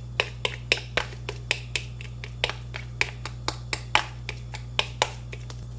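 A metal fork clicking and tapping against a clear plastic food-storage container as mashed avocado is stirred in it: quick, irregular taps, about four a second.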